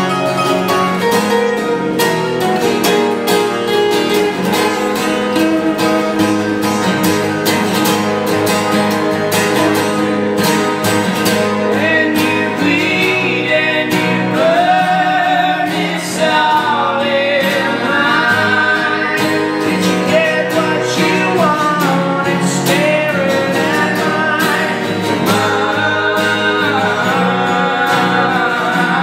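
A guitar-driven song with a singing voice: the guitar part plays alone at first, and the vocal line comes in about halfway through.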